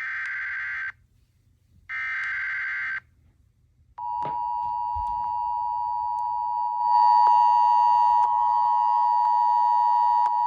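Emergency Alert System SAME header: two short bursts of raspy digital data tone, each about a second long. About four seconds in, the steady two-tone EAS attention signal starts, a harsh dual-pitched drone that gets louder a few seconds later.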